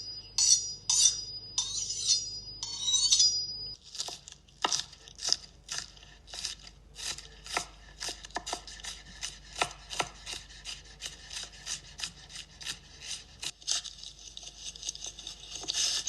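Knife chopping food on a cutting board. A few louder, scraping strokes come first, then a long run of short, even chops at about three a second, turning to a steadier rasping rub near the end.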